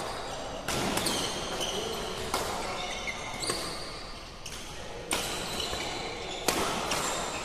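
Badminton rally in an echoing hall: sharp racket hits on the shuttlecock, about a second or so apart, with short squeaks of court shoes on the floor between them.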